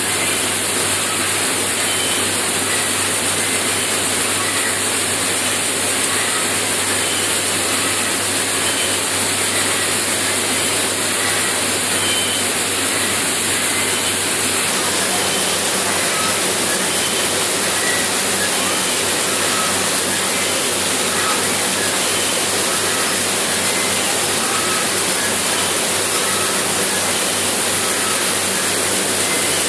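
Seed-cleaning machinery in a seed processing plant running: a steady, even rushing noise with a low hum underneath.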